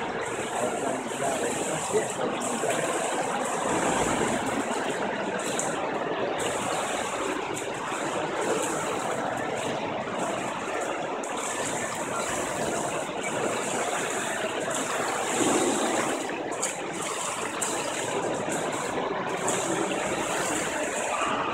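Steady noise of an indoor swimming pool hall, with water sloshing and splashing from swimmers in the lanes.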